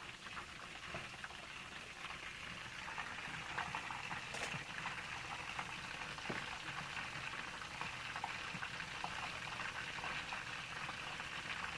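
Food cooking in hot fat on the stove: a steady sizzling and bubbling hiss with small crackles and pops.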